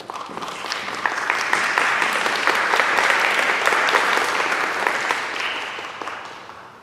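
Audience applauding, swelling over the first second and fading away over the last two seconds.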